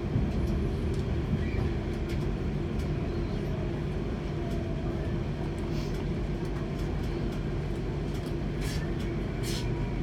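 Electric commuter train running along the line, heard from inside the carriage: a steady low rumble with a steady hum, and a few short hisses in the last few seconds.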